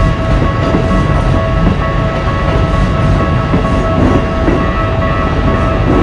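An electric commuter train rumbles past over the rails of a Japanese level crossing, while the crossing's electronic warning bell keeps sounding its steady 'kan-kan' tones over the train noise.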